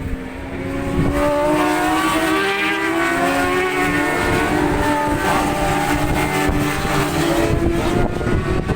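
Several race motorcycles at high revs passing together, their engine notes overlapping and shifting in pitch; the sound swells about a second in.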